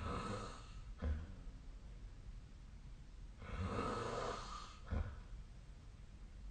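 A sleeping person snoring, with about one long rasping breath every four seconds. Twice, about a second in and five seconds in, a short low snort follows the breath.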